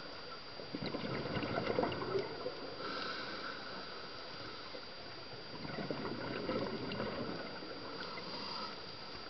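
Scuba diver breathing through a regulator underwater: two exhalations of bubbling noise, about a second and about six seconds in, each followed by a softer inhalation hiss through the regulator.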